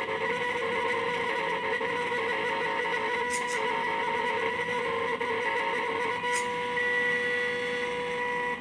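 Stepper motors of a DVD-drive CNC plotter whining steadily as they drive the pen carriage, the pitch changing slightly as the moves change, with a couple of faint clicks.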